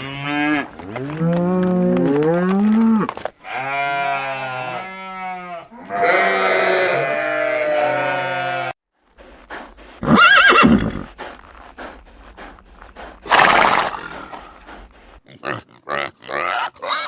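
Farm animals calling: several long pitched calls that waver and bend in pitch over the first nine seconds. A short high call follows about ten seconds in, and a brief noisy blow about thirteen seconds in.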